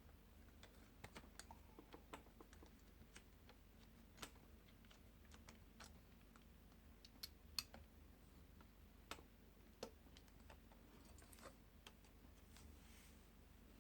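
Faint, irregular small clicks and taps, with one sharper click about seven and a half seconds in: a small screwdriver and screws being worked on a laptop's case.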